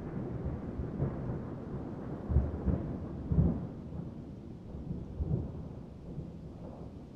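Thunderstorm ambience: low rumbling thunder that swells a few times over a light hiss of rain, slowly fading toward the end.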